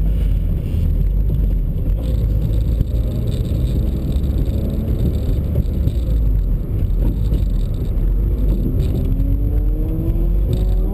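A small car's engine running hard under load, heard from inside the cabin along with road and tyre noise, its revs climbing steadily near the end.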